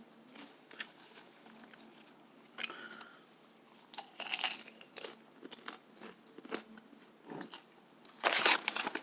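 A person biting and chewing a crunchy snack close to the microphone: a string of irregular short crunches, the loudest just before the end.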